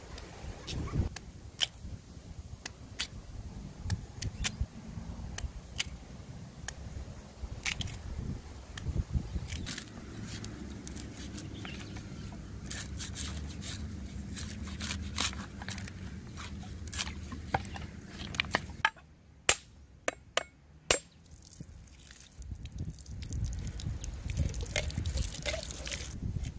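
Large knife chopping and prying the fibrous husk off a coconut: a long string of sharp cuts and knocks. About two-thirds through, a few separate sharp strikes come in a quieter stretch as the shell is cracked open.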